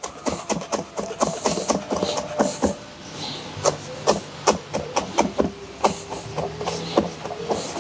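Knife chopping fresh mint on a plastic cutting board: a quick, uneven run of blade taps, several a second.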